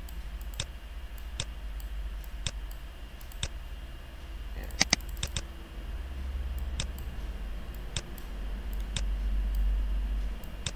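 Computer mouse button clicking, about a dozen separate clicks at irregular intervals, as nodes are placed one by one while tracing a Bezier curve. The loudest is a quick double click about five seconds in, over a low steady hum.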